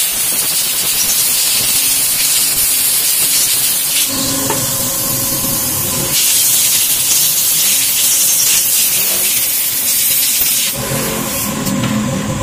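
Loud, steady hiss of a pressurised jet, likely aimed at the scooter's centrifugal clutch shoes, stopping suddenly near the end. A faint steady hum runs underneath from about a third of the way in.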